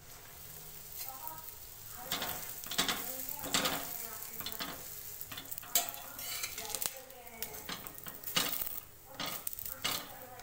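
Pav bun toasting on a hot iron tawa with a light sizzle, while a steel spatula scrapes and knocks against the griddle about a dozen times.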